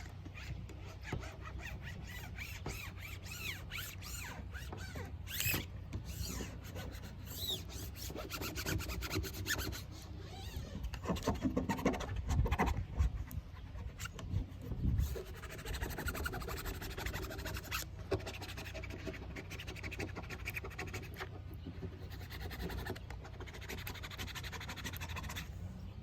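Intermittent rubbing and scraping over a vinyl decal being pressed down onto the car before its transfer tape is peeled, over a steady low hum.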